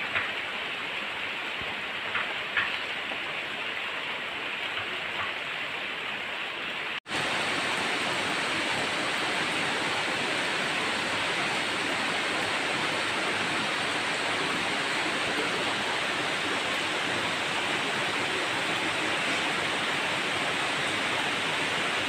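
Heavy rain falling steadily, an even hiss with a few small drip taps near the start. About seven seconds in it cuts to a slightly louder, denser stretch of downpour.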